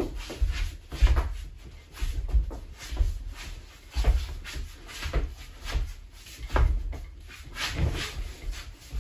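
Dull thuds and shuffling of mascot costumes' padded feet on a wooden floor, about once a second, with the rustle of the costumes' fabric as the two wearers jostle.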